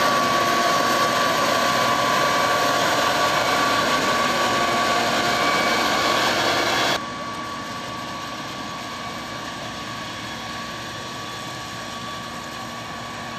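John Deere 9970 cotton picker running as it harvests cotton: a steady mechanical drone of engine and picking machinery with a thin steady whine over it. About seven seconds in it suddenly becomes quieter and then runs on evenly.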